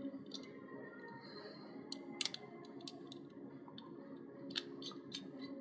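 Faint clicks and small taps of a wire end being worked into the screw terminal of a plastic relay socket. There is a louder pair of clicks about two seconds in and a quicker run of clicks near the end.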